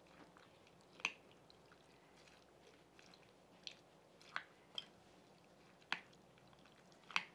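Metal spoon stirring sliced carrots and onions in vinegar and water in a glass bowl: quiet wet squishing, with about six sharp clinks of the spoon against the glass spread through the stirring.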